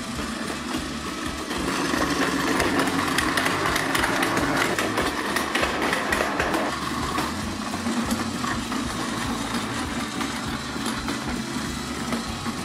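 Battery-powered Plarail toy Shinkansen running: small motor whirring and wheels rattling over wooden track as it passes through a plastic tunnel. It gets louder about a second and a half in and eases off around seven seconds in.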